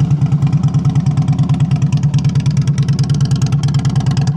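2013 Harley-Davidson Ultra Classic's 103-cubic-inch fuel-injected V-twin idling steadily through aftermarket slip-on mufflers, a quick even pulse of exhaust beats. A real healthy idle, with no strange noises from the motor.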